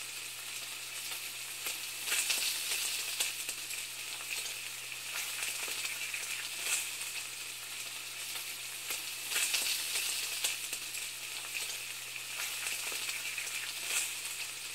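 Food frying in hot oil: a continuous sizzle with irregular crackles and pops, over a faint steady low hum.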